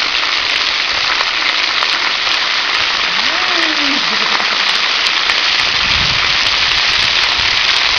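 Splash pad water jets spraying up and splashing back onto the wet pad surface, a steady hiss. A brief rising-then-falling voice sounds about three seconds in.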